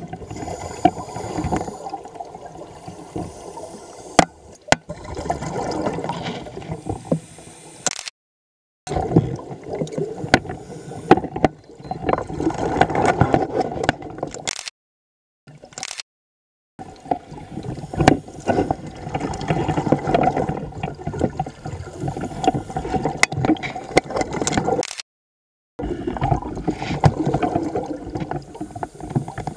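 Underwater scuba breathing: exhaled bubbles from a diver's regulator gurgle in repeated uneven bursts. The sound cuts to dead silence four times, each gap lasting under a second.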